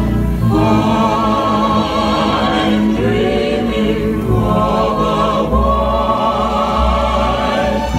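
Recorded music for a skating routine: voices holding long, wavering sung notes over an instrumental accompaniment.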